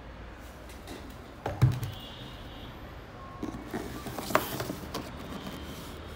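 Handling sounds of a sneaker and its cardboard shoebox: one thump about a second and a half in as the shoe is set down, then a few light knocks and rustles.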